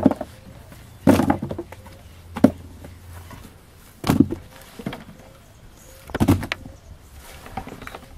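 Handfuls of cut prickly pear (nopal) pad pieces being tossed into a plastic crate: a series of dull thumps about every one to two seconds as the wet chunks land on the pile.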